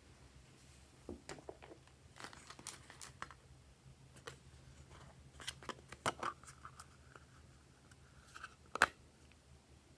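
A small plastic tub being handled and opened: scattered clicks, taps and crinkles of hard plastic, with a faint thin drawn-out tone from about six seconds in and a sharp click near the end.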